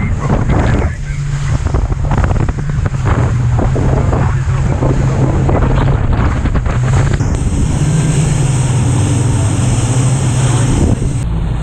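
Atlantic 85 rigid inflatable lifeboat running at speed through a choppy sea: a steady drone from its twin outboard engines under heavy wind buffeting on the microphone, with rushing water.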